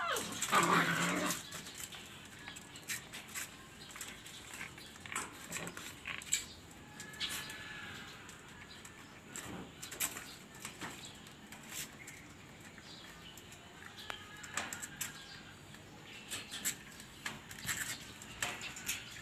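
A Belgian shepherd puppy's whine sliding down in pitch and dying away about a second in, followed by scattered light clicks and scuffles as the puppies move on a plastic slatted cage floor, with one faint short whimper midway.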